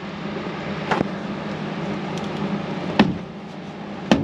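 Three sharp clicks as an interior trim panel in a Daihatsu mini truck's cab is worked loose: one about a second in, a louder one at about three seconds, and one near the end, over a steady low hum.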